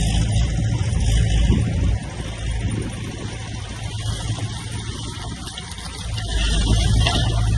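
Heavy construction machine's diesel engine running steadily at a low pitch, easing off about two seconds in and building up again near the end.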